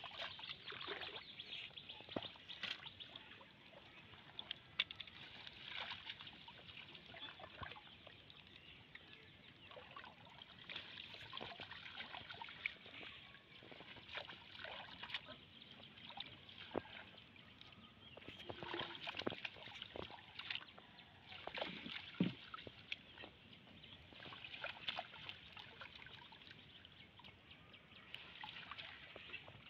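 Irregular small splashes and trickling water as a collapsible mesh fish trap is lifted, shaken and set back in shallow pond water.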